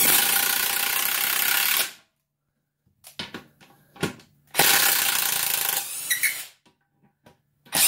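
Harbor Freight EarthQuake XT 1/2-inch cordless impact wrench hammering a bolt into a wooden block, in two runs of about two seconds each with a pause between, a few light clicks in the pause, and a short final burst near the end.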